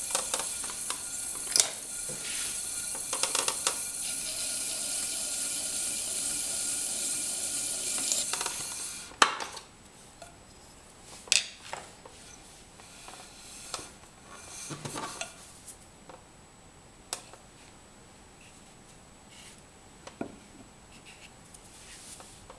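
Potter's wheel spinning with a trimming tool scraping the leather-hard clay bowl, a steady hiss with ticks that stops abruptly about nine seconds in. Then scattered knocks and taps as the bowl is handled and turned upright on the metal wheel head.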